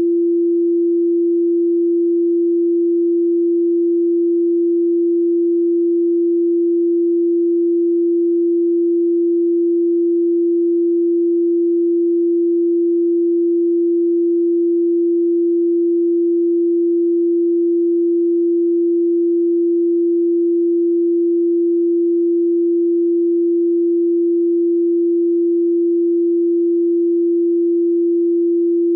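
A steady electronically generated sine tone at 341.3 Hz, one unchanging pitch.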